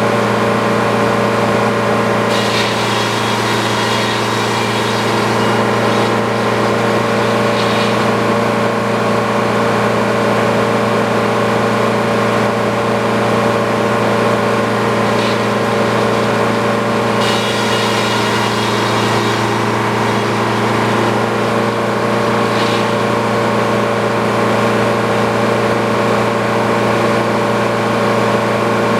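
Sawmill engine running steadily, with a few short higher-pitched sounds every few seconds.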